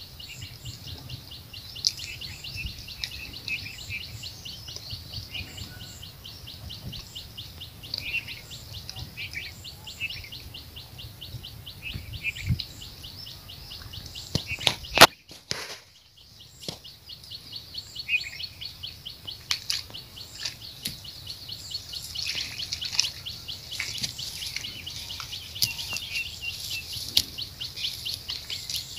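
Small birds chirping, with fast runs of high repeated notes, over a low rumble. About halfway through, a sharp click is followed by a drop-out of about a second.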